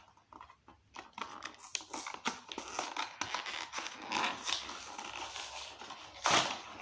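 Choco Pie packaging being torn open and crinkled by hand: a string of quick crackles and rustles of cardboard and plastic wrapper, with the loudest tear near the end.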